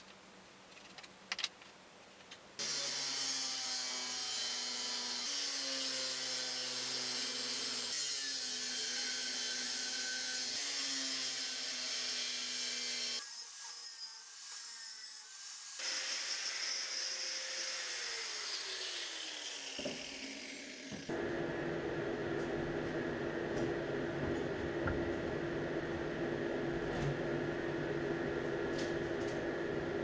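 Power tools working metal in a montage of short stretches, a benchtop drill press drilling among them. A few faint handling clicks come first, then about three seconds in a loud tool starts up; about two-thirds through, a tool winds down with a falling whine, and a different steady machine sound follows.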